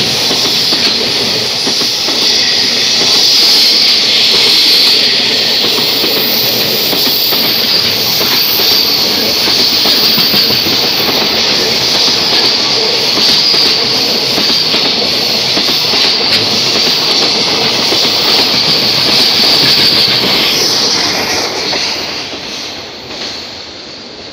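Container wagons of a freight train passing close at speed: a steady rumble of wheels on rails with a strong high hiss and clicking over rail joints. About 21 seconds in the noise fades as the end of the train draws away.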